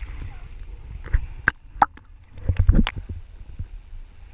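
Shallow water sloshing around a camera held at the surface, with a low rumble throughout. A handful of sharp knocks and splashes come between about one and three seconds in.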